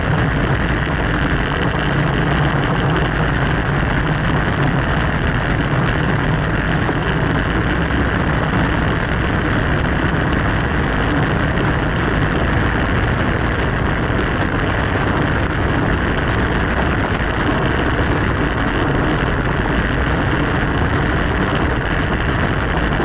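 Steady rush of wind and road noise over the microphone of a camera riding on a racing bicycle at speed.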